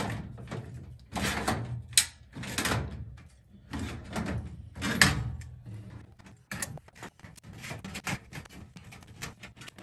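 Hand sheet-metal crimping tool squeezing the tabs of a furnace filter rack: a run of irregular clicks and short scraping handling noises. Two sharp snaps, about two and five seconds in, are the loudest.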